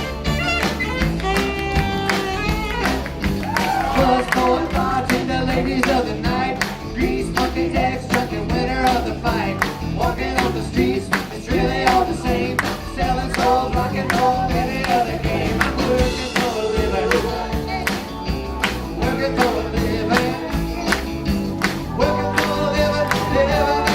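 Live band playing an upbeat rock song with a steady drum beat.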